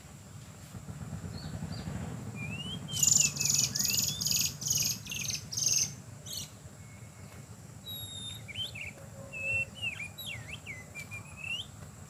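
Oriental magpie-robins calling: six harsh, rasping notes at about two a second, mixed with short rising whistles, then a few scattered whistled notes and slurs near the end. A faint steady high insect drone runs underneath.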